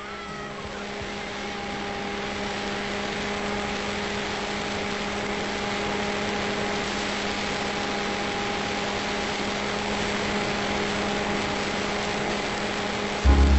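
Electric motor and propeller of a Multiplex EasyStar model airplane running at steady speed, a constant drone with the rush of airflow over the onboard camera. Music comes in just before the end.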